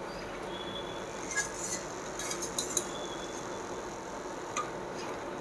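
Wire spider strainer clinking against the kadai and plate as fried peanuts are scooped out and tipped onto the plate: a few light metallic clinks and taps, bunched around the middle, over a low steady hiss.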